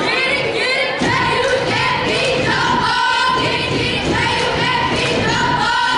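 Music with a singing voice holding long notes.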